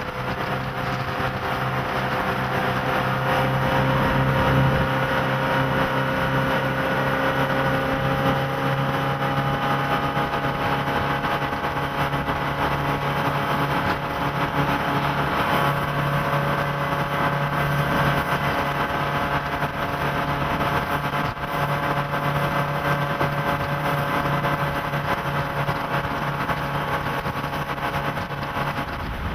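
MerCruiser 5.0L V8 sterndrive engine running under way on the Bayliner 215 bowrider, heard from on board. Its pitch creeps up over the first several seconds as the boat gathers speed, then holds steady at cruise.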